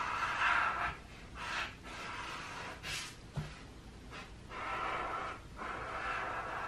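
Marker tip drawing on paper: a run of scratchy strokes, each lasting under a second, with short pauses between them.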